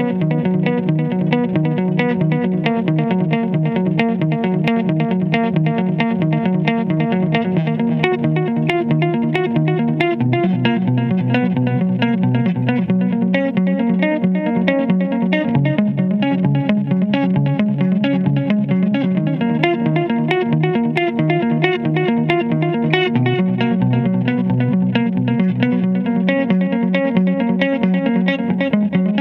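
Electric guitar, a Stratocaster-style instrument, played as an instrumental with a fast, steady stream of picked notes, over low bass notes that hold and change every few seconds.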